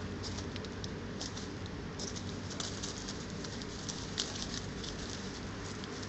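Rustling and crackling in dry twigs and leaf litter as hedgehogs shuffle about: an irregular patter of short crackles, several a second.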